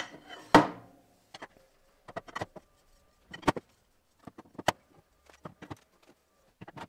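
Aluminium extrusion frame parts being handled on a work surface: a series of sharp knocks and clicks, the loudest about half a second in.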